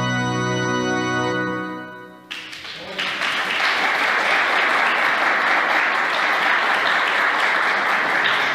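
An electronic keyboard set to an organ sound holds a final chord that fades out about two seconds in, ending the piece; an audience then applauds steadily for the rest of the time.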